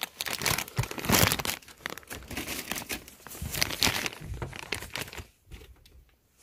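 Thin clear plastic packaging crinkling and rustling in irregular bursts as it is handled and pulled open, dying away about five seconds in.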